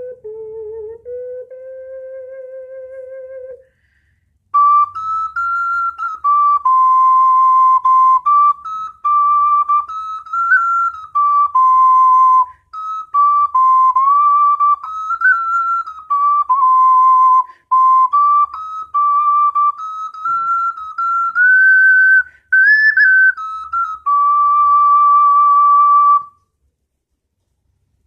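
Double-chamber alto C ocarina being played: a few low notes, the last held with vibrato, then after a short pause about four seconds in, a higher stepping melody that stops about two seconds before the end.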